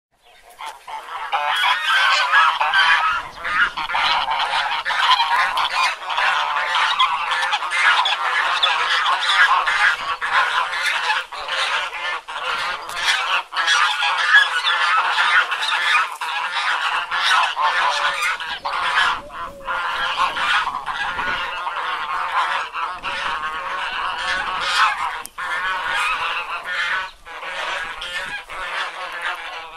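A flock of domestic geese honking, many calls overlapping continuously, fading in over the first second.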